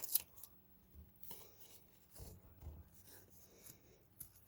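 Faint rubbing, scraping and crinkling of hands working at a flash drive's plastic retail packaging, with a few light clicks and a soft bump about two seconds in.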